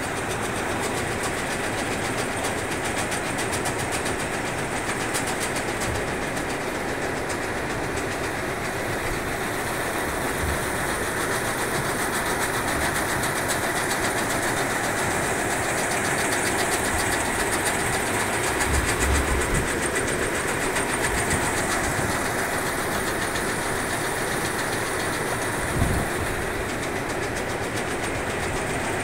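Coal mine belt conveyor running steadily: a dense, even mechanical noise of the belt travelling over its steel idler rollers, with fine rapid ticking through it. A single low thump about 26 seconds in.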